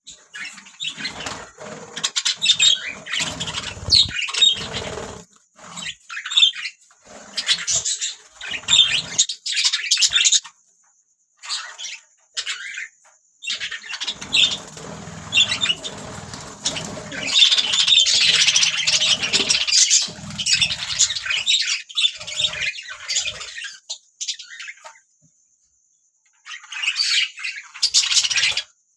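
Budgerigars chirping and chattering in irregular bursts, with short pauses about eleven seconds in and again a few seconds before the end.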